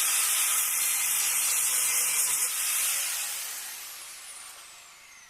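Angle grinder cutting into the steel of a classic Mini inner A-panel with a loud, hissy grinding noise, then released and winding down, its whine falling in pitch and fading over the last couple of seconds.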